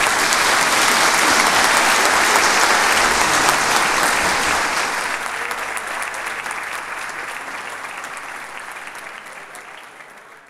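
Audience applauding, loud at first and then gradually fading away.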